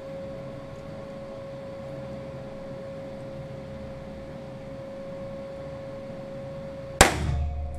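Steady background hum, then a single sharp gunshot near the end with a short ring after it, from a Weihrauch HW5 T .22 revolver being fired with Fiocchi ammunition.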